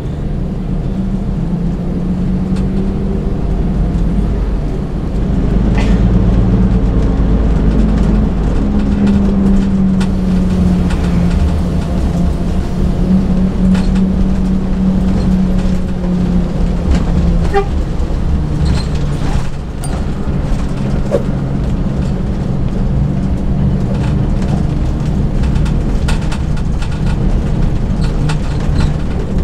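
A Mercedes-Benz OH 1526 coach's diesel engine and road noise, heard from inside the cabin while under way. The steady low rumble carries an engine note that slowly rises and falls with engine speed, with occasional small rattles and clicks.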